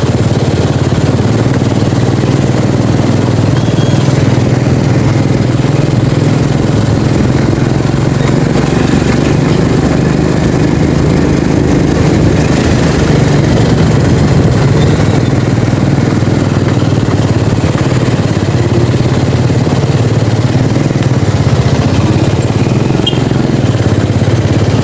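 Motorcycle engine running steadily while riding, a constant low hum without revving.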